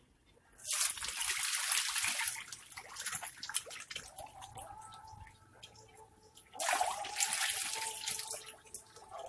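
A dense swarm of young lele (Clarias) catfish thrashing at the surface of a tarpaulin pond, churning the water. There are two loud bursts of splashing, one about a second in and another about two-thirds of the way through, with quieter sloshing between them.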